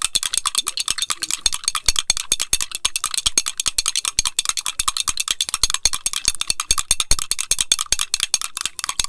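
A metal spoon beating a thick coffee mixture in a glass mug, clinking rapidly and evenly against the glass many times a second as the mixture is whipped to a froth.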